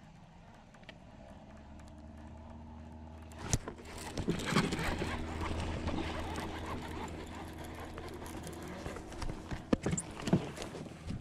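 A hooked bass being fought on a baitcasting rod and reel: a sharp knock about three and a half seconds in, then the steady whir of the reel being cranked, with scattered knocks and clicks.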